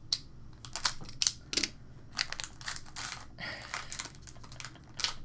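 Foil wrapper of a 2016 Upper Deck Marvel Masterpieces trading-card pack crinkling as it is torn and peeled open by hand, an irregular run of sharp crackles, the loudest about a second in.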